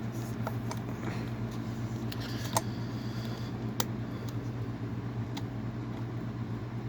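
A few sharp clicks and small knocks from the setting knobs of a Westclox Big Ben S10-D electric alarm clock being turned and pushed, the loudest about two and a half seconds in, over a steady low electrical hum.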